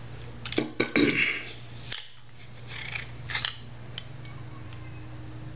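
Clear adhesive tape being pulled off its roll and torn: a few short rasping bursts and small clicks of handling, over a steady low hum.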